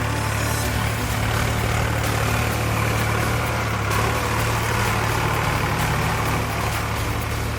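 Sonalika DI 745 III tractor's three-cylinder diesel engine running steadily while pulling a cultivator.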